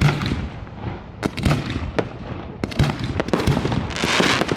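Aerial fireworks display: a string of sharp bangs from shells bursting at irregular intervals, with a dense hissing crackle swelling up near the end.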